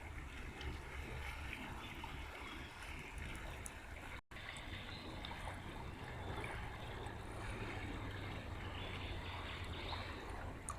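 River water flowing steadily, an even rushing with a low rumble beneath it. The sound cuts out for a split second about four seconds in.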